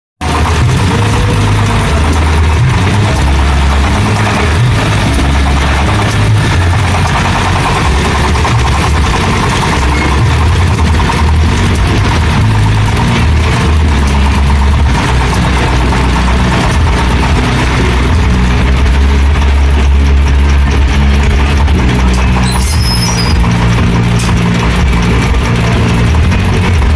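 Small stationary diesel engine driving a Ferris wheel through belts and pulleys, running steadily and noisily.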